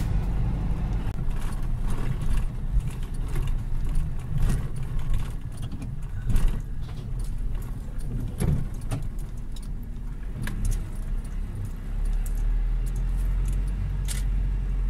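A 4-ton truck running, heard from inside the cab: a steady low engine and road rumble with irregular rattles and knocks from the cab.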